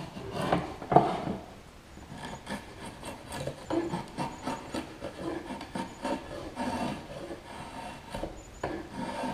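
Drawknife shaving a hickory axe-handle blank clamped in a shaving horse: a run of short scraping strokes as thin shavings peel off the wood, the loudest about a second in.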